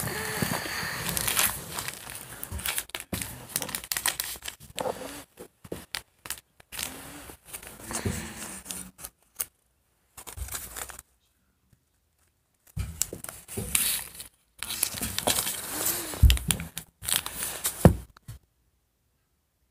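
Bedding rustling and crinkling right against the phone's microphone, on and off in irregular bursts, with a pause of about two seconds about eleven seconds in.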